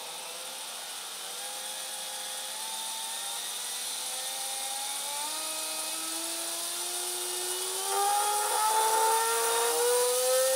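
High-voltage supply of a homemade ion thruster switched on: a high hiss, typical of corona discharge, and a whine that rises slowly and steadily in pitch as the voltage is turned up. The whine grows louder about eight seconds in.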